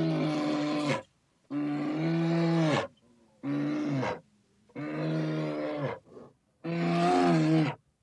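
A bear's deep roaring calls, repeated five times, each about a second long on a steady pitch that drops at the end, with short silent gaps between them.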